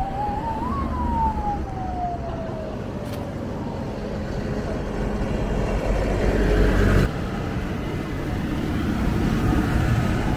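Tractors and cars in a Christmas tractor run driving past, a steady low diesel engine rumble that grows louder as one passes close about six seconds in. Near the start a siren wails once, climbing in pitch and then sliding slowly back down.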